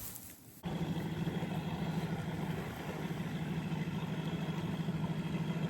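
An engine running steadily at idle, a low hum with a fast flutter, starting abruptly about half a second in.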